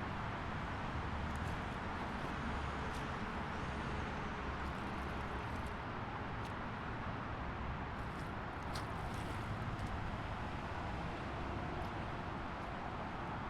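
Steady highway traffic noise: a continuous wash of passing cars with no single vehicle standing out, and a few faint, brief high ticks here and there.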